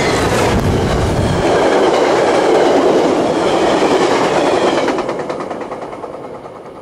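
A Metra diesel-hauled passenger train passing close by at speed. The locomotive's engine rumble goes by in the first second or so, then the wheels of the bi-level coaches clatter along the rails, fading as the last car goes past.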